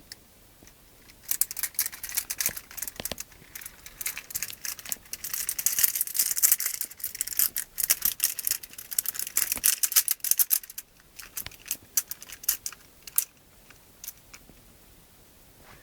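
A foley effect for fluttering moth wings: quick, dry, high clicks and rattles. They start about a second in, build to a dense flurry in the middle, then thin to scattered clicks before dying away near the end.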